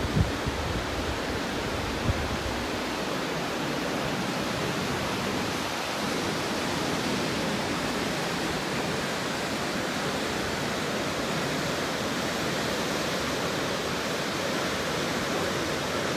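Waterfall with a steady, unbroken rush of water, and a couple of low thumps in the first two seconds.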